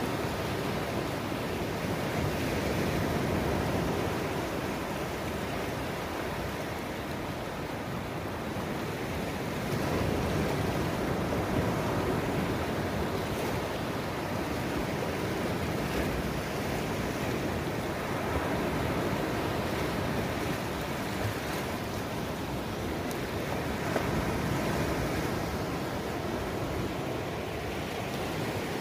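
Ocean surf: small waves breaking over shoreline rocks and washing up a sandy beach, a continuous rush that swells and eases every several seconds.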